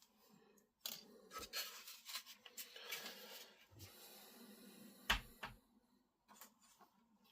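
Small hobby tools and plastic parts being handled at a workbench: scattered clicks and rustling, with one sharper knock about five seconds in.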